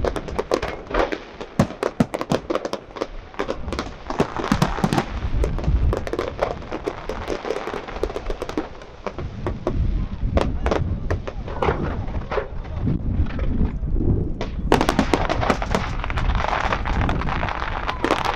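Fireworks display: a steady run of aerial shell bangs and crackling with deep rumble, easing briefly and then breaking into a thick flurry of sharp pops about three-quarters of the way through.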